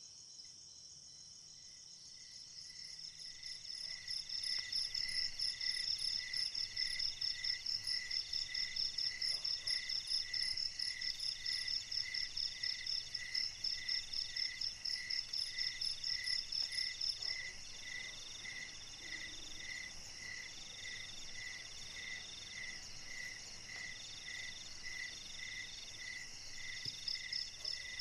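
Night chorus of crickets and other insects: a high, rapid trill over a lower chirp repeating about one and a half times a second. The chorus swells about four seconds in and eases off a little over halfway through.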